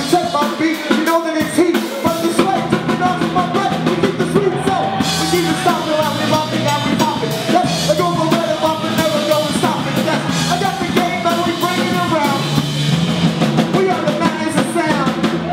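Loud live band music: a drum kit and other instruments playing under a singing voice.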